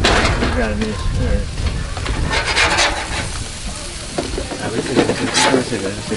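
Burger patties frying on a hot grill: steady sizzling with a few sharp clanks.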